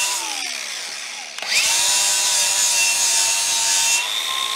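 Angle grinder blending the weld on a repaired aluminum outboard skeg. Its motor whine falls away as it spins down, then about a second and a half in it is started again, runs up and holds steady with a grinding hiss.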